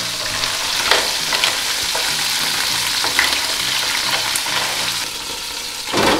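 Oil sizzling steadily in a frying pan on a gas stove under a perforated splatter screen, with garlic, parsley stems and chilli frying in it.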